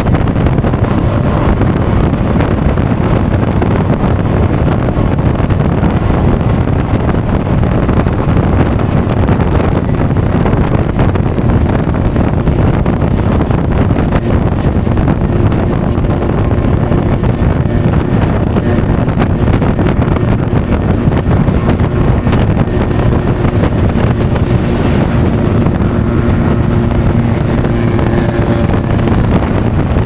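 Wind buffeting an action camera's microphone on a moving Honda Forza 350 scooter, with the engine and road noise running steadily underneath. A faint steady drone comes through in the second half.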